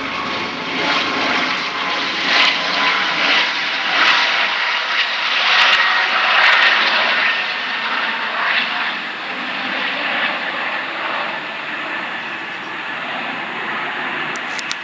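Airplane flying past: a loud rushing engine noise with a faint steady whine that swells to its loudest about six seconds in, then slowly fades.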